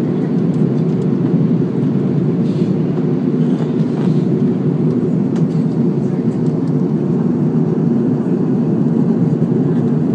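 Steady rushing noise of an airliner in flight heard inside the passenger cabin: engine and airflow noise, deep and even, with no change in level.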